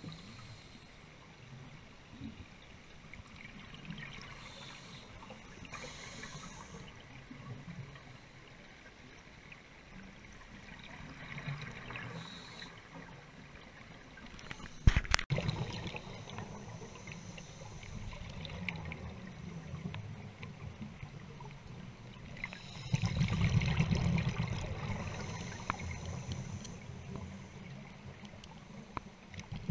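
Underwater bubbling and gurgling picked up by a diver's camera, in irregular surges from scuba exhalations, with one sharp knock about halfway through and a louder stretch of bubbling later on.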